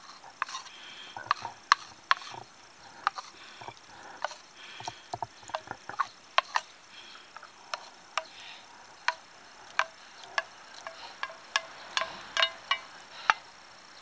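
Wooden spoon scraping and knocking against an aluminium mess tin lid and rim as mushrooms are pushed off into the pot: a run of irregular sharp clicks with a few short scrapes in between.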